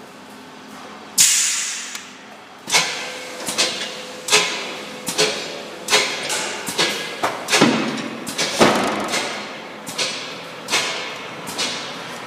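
A run of about fifteen sharp clanks, a little more than one a second, each ringing or hissing off for a moment, over a steady machine hum in a large hall.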